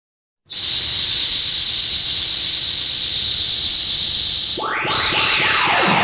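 Loud synthetic whooshing sound effect: it starts suddenly as a steady hiss with a bright high whistle in it. About four and a half seconds in, a sweep rises quickly and then falls slowly in pitch.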